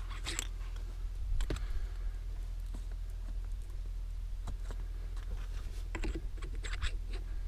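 Scattered light clicks and taps of small hard parts being handled, a few near the start and a cluster near the end, over a steady low hum.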